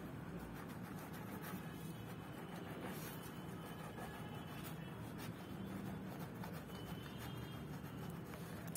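Small kitchen knife sawing through a soft burger bun, with faint, light scraping strokes over a low steady hum.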